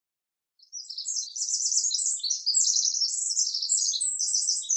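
A small bird twittering in a rapid, unbroken run of high chirps, starting about half a second in.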